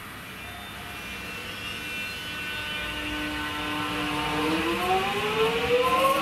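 X'Trapolis electric suburban train pulling away from a standstill. Its traction motors give a steady whine at first, then about two-thirds of the way through several tones rise together in pitch as it accelerates, growing louder.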